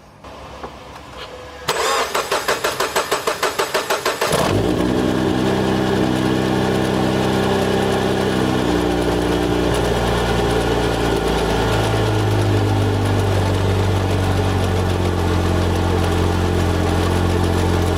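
Supercharged Toyota GT86's 2.0-litre flat-four engine cranking on the starter, about four to five pulses a second, for a few seconds. It then catches and settles into a steady idle whose note shifts a couple of times. This is the first start after fitting the Kraftwerks supercharger upgrade pulley and belt.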